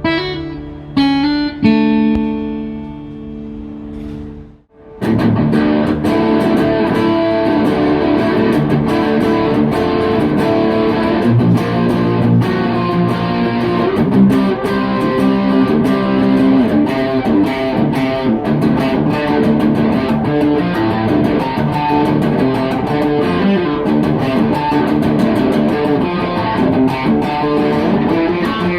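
PRS SE Hollowbody Standard guitar played solo: a few chords left to ring out and fade, a brief stop about five seconds in, then busy, continuous picking with quick note attacks for the rest.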